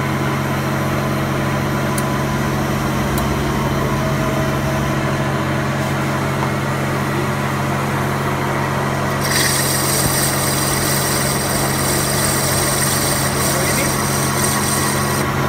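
A metal lathe runs steadily with a low hum, boring out the bore of an aluminium (Diasil) Yamaha cylinder block to enlarge it for a pressed-in liner. About nine seconds in, a high whine joins as the tool cuts, and it stops shortly before the end.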